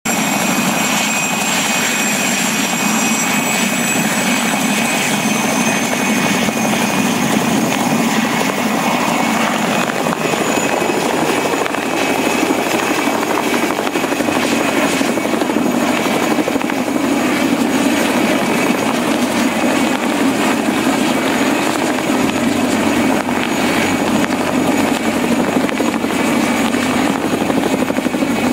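Mil Mi-2 helicopter's twin turboshaft engines and main rotor running steadily as it lifts off and hovers. A high turbine whine stands out for the first ten seconds or so, then a deeper, heavier rotor sound grows stronger.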